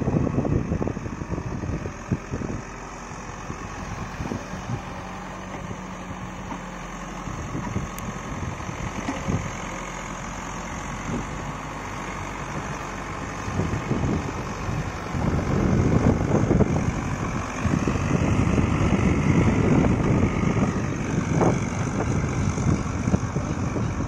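Caterpillar 424B backhoe loader's diesel engine running steadily, then working harder and louder from a little past halfway as the front bucket moves soil.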